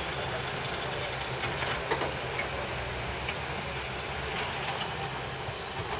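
Caterpillar excavator's diesel engine running steadily as a low hum, with a few knocks about two seconds in.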